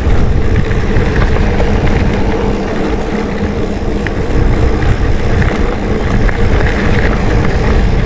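Wind buffeting the microphone and knobby mountain-bike tyres rolling over a gravelly dirt road while riding, a loud, steady rush with no breaks.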